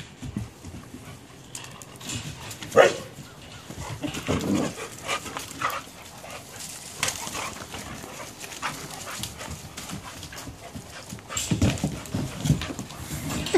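Several puppies at rough play, with one short bark about three seconds in and scattered knocks and thumps from their scuffling.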